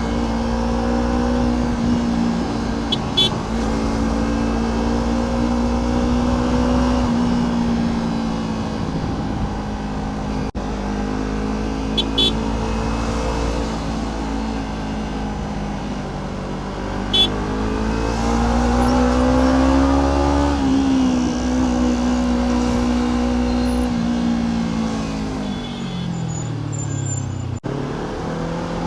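Kawasaki Ninja 300's parallel-twin engine running at a steady cruise, then revving up about two-thirds of the way through. Its note then falls steadily as the bike slows, and picks up again at the very end. Three brief, sharp high-pitched sounds cut in along the way.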